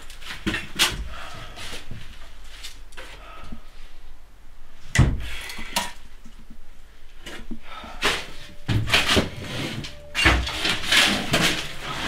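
Drawers and cupboard doors opening and shutting, with objects knocking and clattering as someone rummages through them; a heavier thump about five seconds in.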